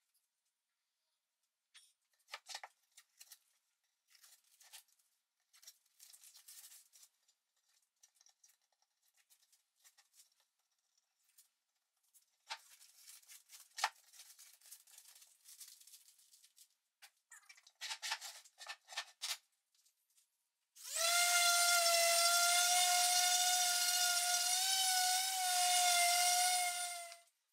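Blue painter's tape being peeled and pulled off a glued plywood box, a scattered rustling and tearing. Then a random orbital sander starts and runs for about six seconds on the plywood face, a steady high whine, and stops near the end.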